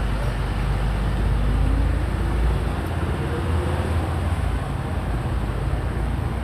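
Steady low rumble of outdoor background noise, with a faint tone rising in pitch about two seconds in.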